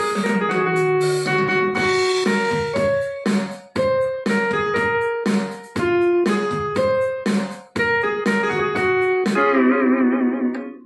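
Casio CT-X870IN portable keyboard played on its stage piano tone: a melody of single struck notes, two or three a second. Near the end, held notes are wobbled up and down in pitch with the pitch bend wheel.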